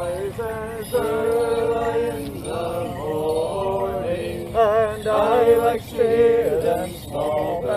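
Men's voices singing an unaccompanied English folk song, long held notes with a wavering pitch.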